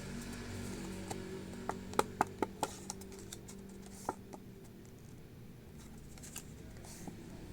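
Hands handling toy card packaging: a quick run of five or six light clicks or taps about two seconds in, then one more a second later, over a low steady hum.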